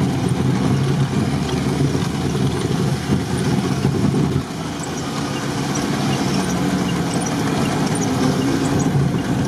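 Off-road UAZ's engine running under way, heard from inside the cab as it drives over a rough track. The sound drops a little about four and a half seconds in.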